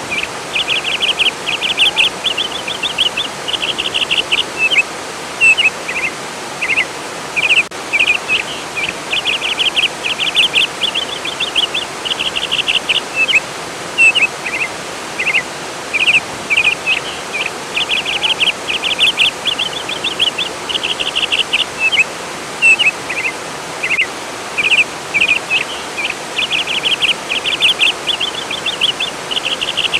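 Steady rush of flowing water, with a songbird singing repeated bursts of fast, high chirps and trills every second or two, the loudest sounds over the water.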